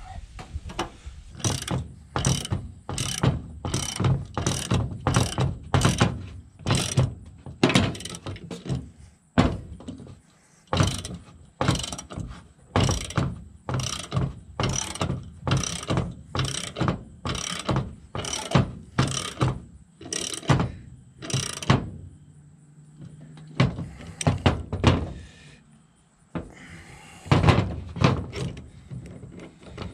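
Ratchet wrench worked in quick repeated strokes, about two clicking strokes a second, with a few short pauses near the end.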